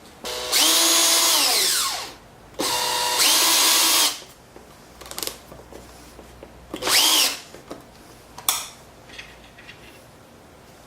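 Power drill run three times in short bursts, as if driving screws to fasten a wooden part to a table-saw sled: two runs of about a second and a half and a brief one, with the motor whine falling in pitch as it spins down. A few light knocks follow.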